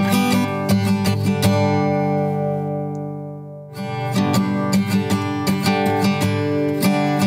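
Background music of strummed acoustic guitar. About two seconds in, a chord is left to ring and fade, and the strumming picks up again about halfway through.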